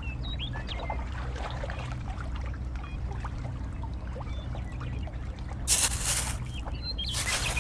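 An engine running steadily with a low, even hum, with faint bird-like chirps over it. Two short bursts of loud hissing noise come near the end.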